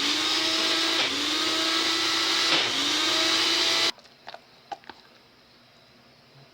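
Ninja blender pureeing baked pumpkin: the motor runs loudly, its hum dipping in pitch and recovering a few times as it works through the thick load, then cuts off suddenly about four seconds in. A few light clicks follow.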